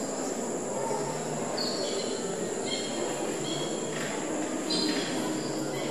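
Short high chirping tones, several of them stepping down in pitch in twos and threes, over a steady high whine and a low murmuring hiss.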